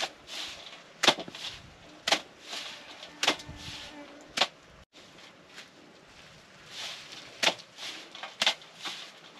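Handfuls of dried leafy greens being shaken and slapped down into a metal tray to knock the dirt out of them: a sharp slap about once a second, with a pause midway, and leaves rustling in between.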